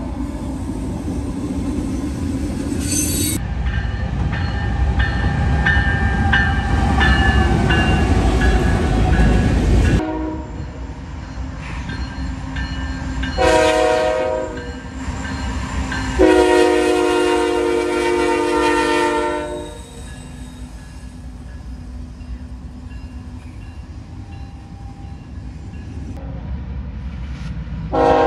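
GE ET44AC diesel-electric locomotives passing: first a loud close rumble of a train rolling through a grade crossing with the crossing bell ringing, then, after a cut, a locomotive horn sounds a short blast and a long blast of about three seconds over a quieter rumble. Another horn blast begins at the very end.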